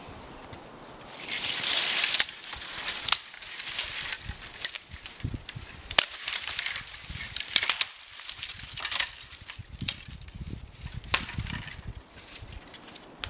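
A small dead standing tree being pushed and pulled over by hand: dry wood cracking, with dead twigs and branches snapping and crackling as they scrape through the neighbouring trees, and feet shuffling in snow. The densest crackling comes about a second in, followed by many separate sharp snaps.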